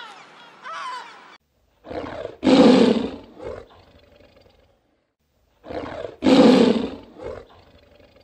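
A tiger roaring twice, about four seconds apart, each a short lead-in growl swelling into a loud, deep roar. Before the first roar, the last of an Atlantic puffin's wavering calls fades out.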